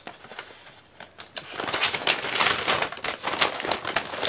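Plastic packaging crinkling and rustling as it is handled, starting about a second in as a dense run of irregular crackles.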